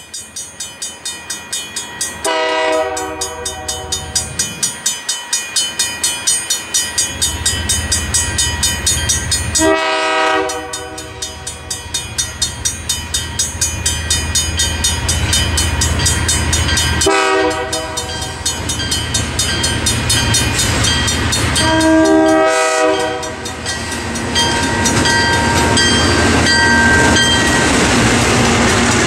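Alco C-424 diesel locomotive sounding its horn four times as it nears a grade crossing, over the fast, even ringing of the crossing-signal bell. The deep rumble of the locomotive's diesel engine grows as it draws close near the end.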